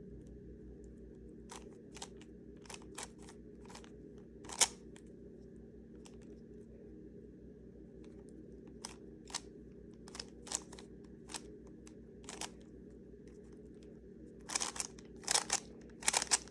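Plastic Rubik's cube layers clicking as they are turned by hand, single clicks at uneven gaps and then a quicker run of turns near the end, over a steady low room hum.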